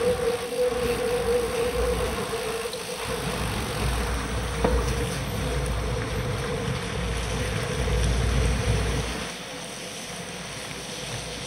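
Wind buffeting the microphone of a camera mounted on a moving bicycle, with tyre noise from the wet road and a steady hum underneath; the wind rumble eases off about nine seconds in.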